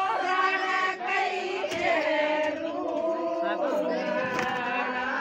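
A crowd singing a traditional Hindu wedding song together, several voices holding long notes at once.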